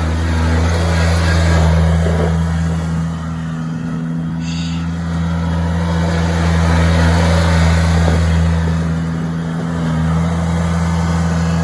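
Zero-turn mower engine running steadily under load, swelling and easing in loudness as it circles. A brief high-pitched squeak comes about four and a half seconds in.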